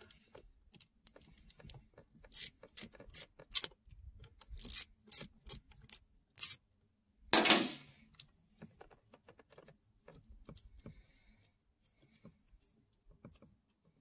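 Metal hand tools clicking and clattering: two runs of sharp, evenly spaced clicks, about two or three a second, then a louder, longer clatter about seven and a half seconds in, followed by faint scattered ticks.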